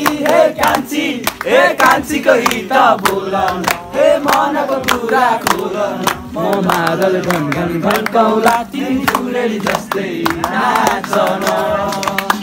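A group of voices singing a Nepali Deusi-Bhailo festival song together, with sharp claps throughout.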